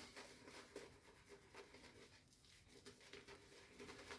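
Near silence: quiet room tone with a few faint, short scratches.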